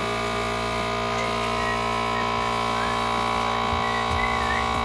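Handheld vacuum sealer's small pump motor running with a steady whine, drawing the air out of a plastic zipper bag.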